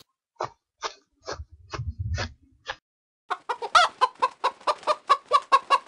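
Chicken clucking: a few spaced single clucks, then a fast, even run of clucks about six a second from about three seconds in.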